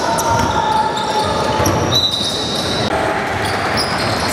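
Indoor basketball game noise: a basketball bouncing on the court and high squeaks of sneakers on the hardwood, over a steady echoing din of the gym.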